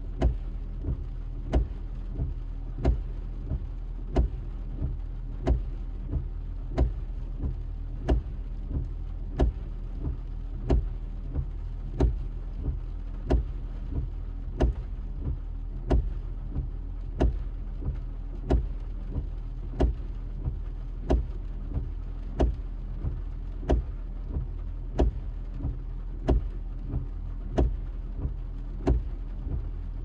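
Car windshield wipers running continuously: each sweep ends in a knock, the stronger ones coming about every 1.3 s with weaker ones between. A steady low hum continues underneath, heard from inside the car.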